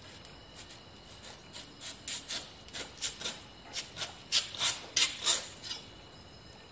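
A serrated knife sawing back and forth through a hard piece of dried salted fish: a string of short scraping strokes, about three or four a second, getting louder toward the end.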